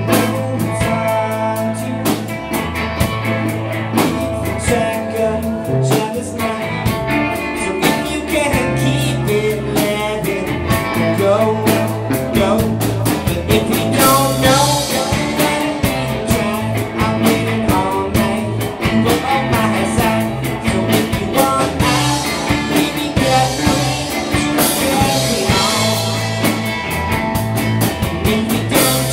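A rock band playing live, with electric guitar, a steady bass line and drums.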